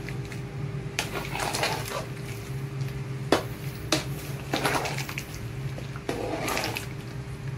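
A ladle stirring a big aluminium pot of hot pork-blood stew: the liquid sloshes in a few swells, and the ladle clinks sharply against the pot about one second in and again twice near the middle. A steady low hum runs underneath.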